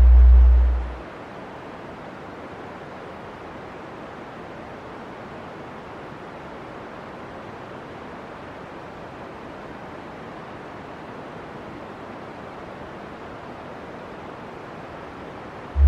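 A steady rushing hiss, even and unbroken, with a loud deep boom lasting about a second right at the start.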